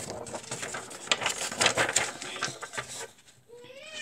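A large sheet of paper being handled and swung about, rustling and crackling for about three seconds. Near the end a faint, drawn-out wavering tone begins.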